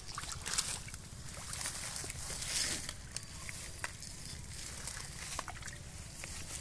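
Hands splashing and scooping through shallow muddy water and wet leaves, with scattered small splashes and crackles.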